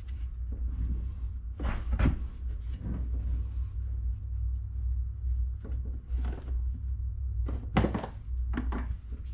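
A handful of short knocks and clunks from hand work on an ATV carburetor's intake clamp, the loudest about two seconds in and again near the end, over a steady low hum.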